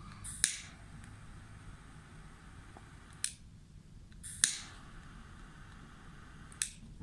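Pocket gas lighter clicked alight twice. Each time its flame hisses softly for about two to three seconds and stops with another click.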